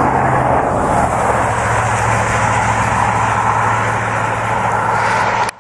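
Highway traffic noise, vehicle tyres on the road surface: a loud, steady rush with a low hum under it that cuts off abruptly near the end.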